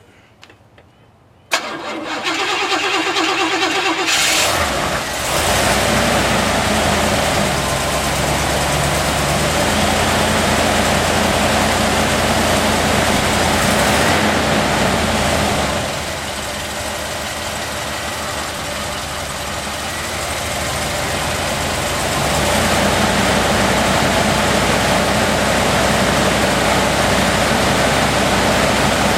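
Cold start of a 1981 Cadillac Sedan DeVille's 368 V8: about a second and a half in the starter cranks for a couple of seconds, then the engine catches and settles into running at idle, its level dipping for several seconds in the middle before coming back up.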